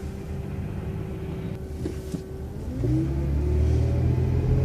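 City transit bus engine running at low revs, with a steady whine; about three seconds in it throttles up and pulls away, its note rising and getting louder.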